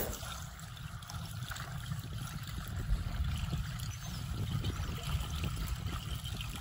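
Wind rumbling on the microphone over a steady fizzing wash of lake water lapping at the shore.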